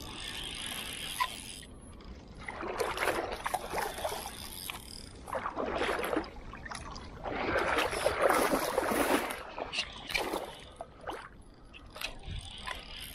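Water splashing and sloshing in several uneven bursts as a fishing landing net is worked through the shallow water, the longest and loudest splash about two-thirds of the way in.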